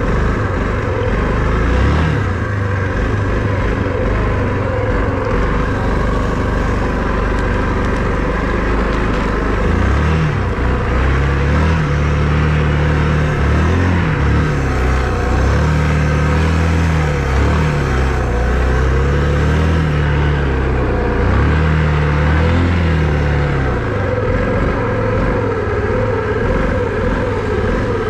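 All-terrain vehicle engine running while riding in snow, steady at first, then from about ten seconds in revving up and dropping back again and again with the throttle.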